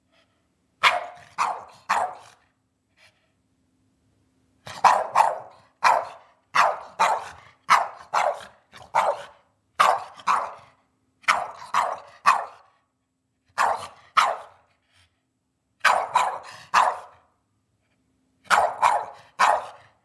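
Boston terrier barking in quick bursts of two to four barks, over and over with short pauses between bursts: demand barking to be fed at dinner time.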